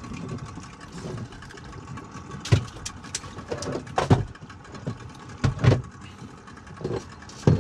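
A boat engine idling steadily, with about half a dozen heavy thumps at irregular intervals over it.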